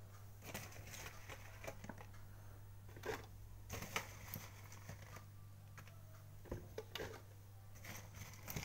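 Scattered light taps and rustles of chilies being dropped by the handful into a blender jar, over a steady low hum.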